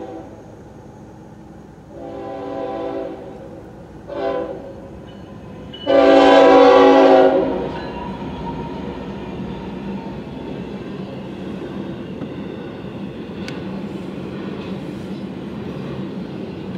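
Passenger train's diesel locomotive horn sounding the crossing signal: a long blast, a short one, then a final long, loudest blast. The train then rushes past through the grade crossing with a steady rumble of wheels on rail.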